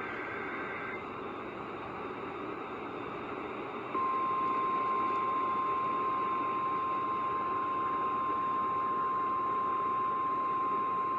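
Emergency Alert System broadcast over weather radio, with steady static throughout. The last two-tone burst of the digital SAME header ends about a second in. About four seconds in, the loud, steady single-pitch 1050 Hz attention tone starts and holds, signalling that a warning message follows.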